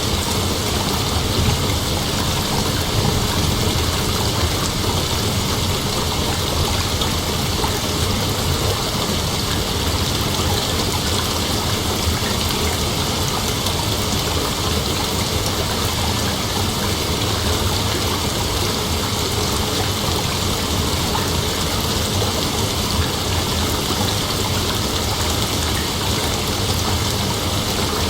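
Steady rain falling, an even unbroken hiss with a constant low rumble beneath it; no single thunderclap stands out.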